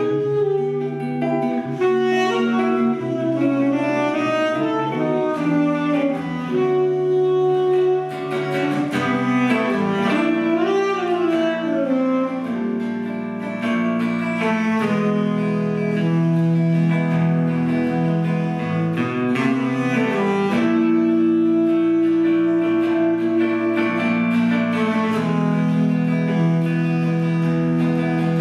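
Hollow-body electric jazz guitar and saxophone playing a jazz duet, with long held notes in the second half.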